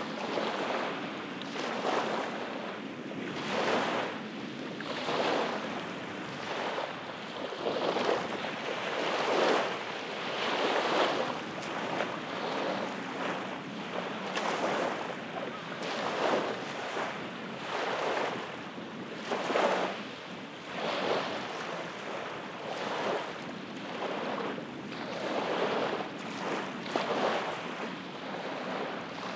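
Small bay waves lapping and washing up onto a sandy shore, a new wash swelling and fading every second or two.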